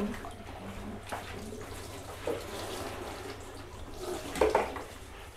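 Water scooped with a plastic dipper from a plastic bucket and poured and splashed into a plastic basin during a child's bath, with several separate splashes, the loudest about four and a half seconds in.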